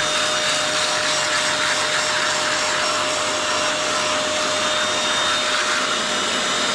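Electric carpet and upholstery cleaning machine running steadily, its motor giving a constant whine over a steady rushing noise, as it is used to wet and clean Alcantara seat fabric.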